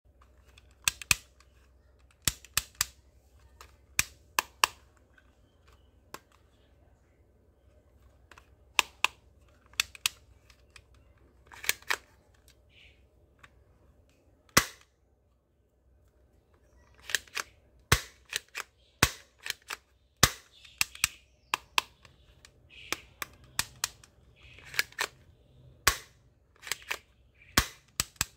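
Sharp plastic clicks and snaps of a toy Desert Eagle-style pistol's slide and trigger mechanism being worked by hand, often in pairs or quick clusters with short pauses between.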